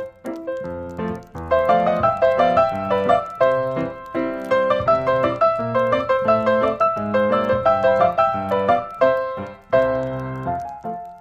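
Background piano music: a busy, continuous run of struck notes.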